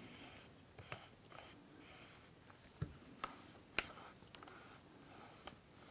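Faint hand-handling noise from a Canon EF 70-200mm f4 L IS lens as its manual focus ring is turned: light rubbing with a few small, sharp clicks.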